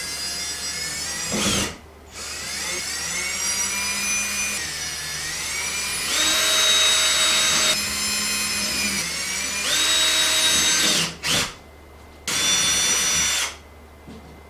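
Cordless drill running against the wall in several spells: a short burst, then a long run of about nine seconds whose whine dips and climbs with the trigger, then two short bursts near the end.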